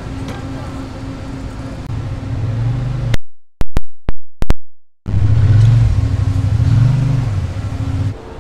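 A loud, steady low mechanical hum. About three seconds in it breaks off into a near-silent gap of about two seconds with a few sharp clicks, comes back, and stops just before the end.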